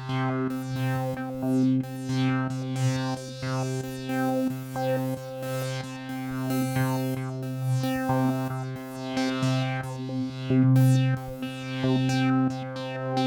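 Behringer DeepMind 12 analog polysynth playing a held low note, with repeated falling sweeps in the upper range every second or two.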